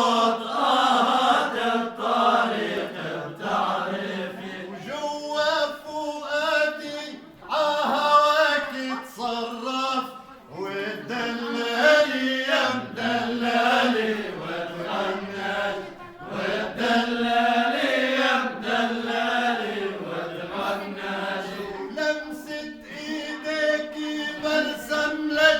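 Men singing a slow Arabic song, the voices holding long notes that bend up and down in pitch.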